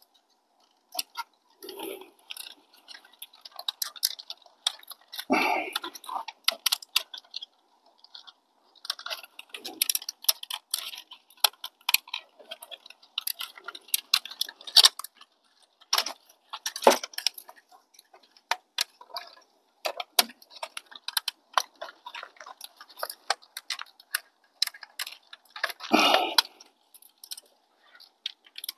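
Irregular clicking, tapping and rattling of a part being worked into place inside a car's interior, with heavier knocks about five seconds in and again near the end.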